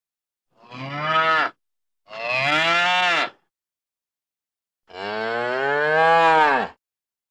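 Cow mooing three times: a short moo, a longer one, then the longest. Each moo rises and falls in pitch, with complete silence between them.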